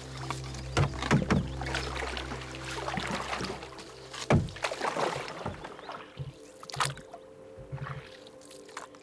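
Canoe paddling: the paddle splashing in the water and knocking against the canoe's hull, with sharp knocks about a second in and again around four seconds, and leafy branches brushing against the boat. After the knocks near four seconds it settles to scattered soft drips and clicks.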